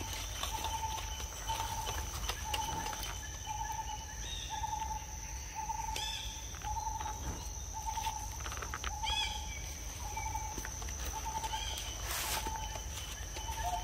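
Forest ambience: a bird repeats one mid-pitched hooting note evenly, about three times every two seconds, over a steady high insect whine. A few short chirps from other birds come through now and then.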